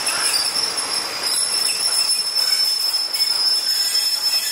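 Passenger coaches rolling slowly past on the rails, with a steady high-pitched squeal from the wheels over a low rolling rumble.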